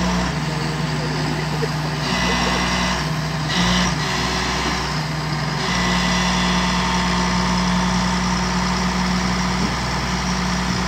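Komatsu hydraulic excavator's diesel engine running under load while its bucket pushes an overturned tracked dumper upright. The engine note steps up and down several times as the hydraulics take and release the load, with a hiss in the first half.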